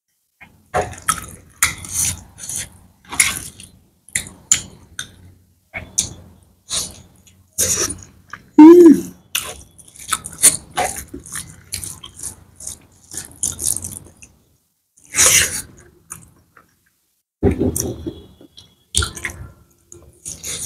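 Close-miked eating sounds: wet chewing and mouth clicks in irregular bursts, with fingers working through saucy curry and noodles. There is one louder short sound, falling in pitch, about nine seconds in.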